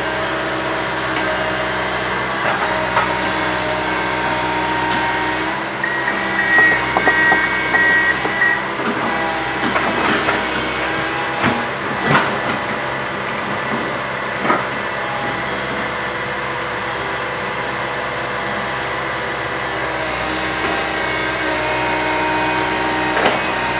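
Komatsu PC160 hydraulic excavator's diesel engine running steadily under working load, with several sharp knocks and clanks from the machine in the middle stretch.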